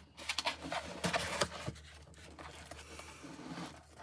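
Light rustling and scraping with scattered small clicks, as objects are handled and unpacked.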